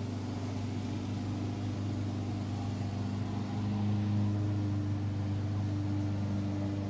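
A steady low mechanical hum, as of a motor or engine running continuously, holding a few fixed pitches and swelling slightly about four seconds in.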